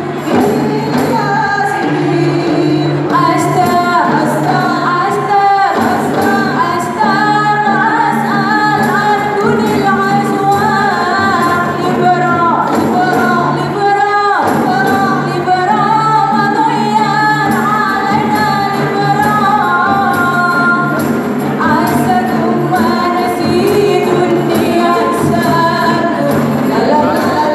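A group of women singing together in harmony over a steady low sustained note, with light frame-drum beats keeping time.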